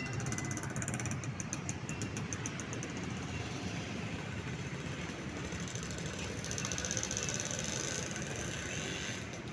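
Diesel locomotives idling at a station, a steady low engine hum. A fast, high, regular ticking sounds over it in the first three seconds and again briefly around seven seconds in.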